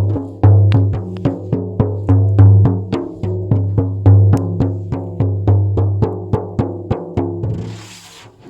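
Music of struck, ringing percussion with a deep drum beat, about three to four strokes a second, fading out near the end. A crinkling rustle like crumpling paper starts just before the end.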